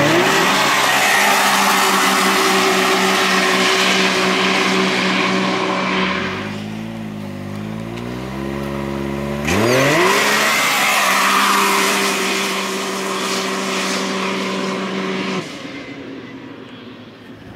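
Can-Am Maverick X3 side-by-side engine at full throttle on drag-race launches: the revs climb sharply and hold at a steady high pitch for about six seconds, drop back and waver, then climb sharply again and hold for about five more seconds before fading as the machine pulls away.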